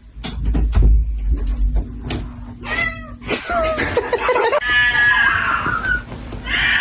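A domestic cat meowing: a short call about three seconds in, then a long drawn-out meow. A few knocks come before the calls.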